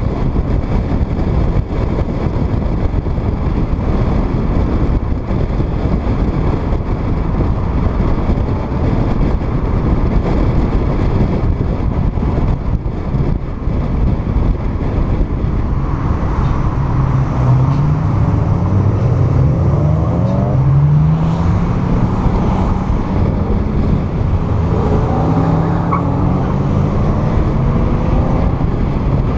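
Wind and road noise from a moving car, heard through an outside-mounted microphone. About halfway through, an engine's pitch climbs in several short rises and then one longer rise near the end, as a car accelerates through the gears.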